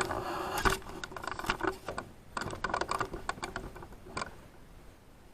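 Hand tools working at a broken bolt: a brief scrape, then a run of light metallic clicks and rattles in quick clusters that thin out after about three seconds.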